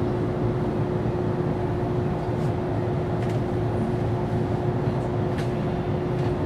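Cabin of a stationary Toyohashi Railway 780-series tram: a steady hum of the tram's onboard equipment, with one constant mid-pitched tone over a low rumble. A few faint ticks come through.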